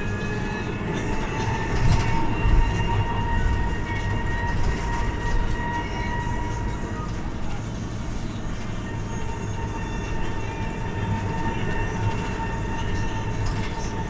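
Irisbus Cristalis ETB 18 trolleybus under way, heard from inside: a steady whine from the electric drive over road and body noise, with a couple of louder bumps about two seconds in.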